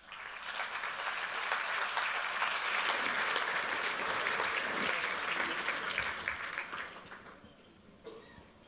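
Audience applauding; it starts at once and dies away about seven seconds in.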